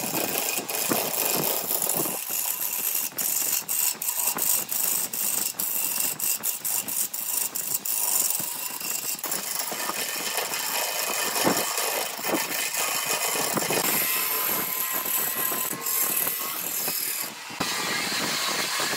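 Wood lathe running while a gouge cuts into a spinning blank of aged grapefruit wood, a continuous rattling, scraping cut with a run of sharp clicks through the first half.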